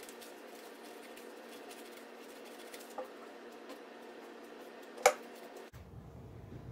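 Scissors snipping tissue paper into strips: faint small snips and paper rustle, then one sharp clack about five seconds in as the scissors are set down on the table.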